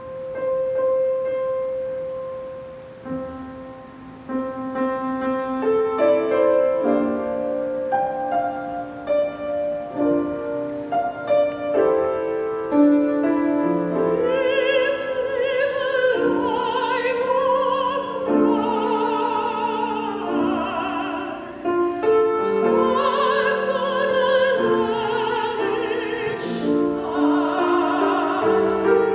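A grand piano plays a solo introduction. About halfway through, a woman's solo voice comes in over the piano accompaniment, singing with a wide vibrato.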